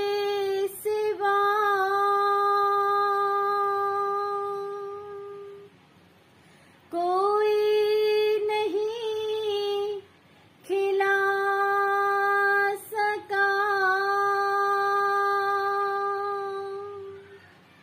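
A woman singing a naat unaccompanied, drawing out long held notes in three phrases, each fading away, with short pauses for breath between.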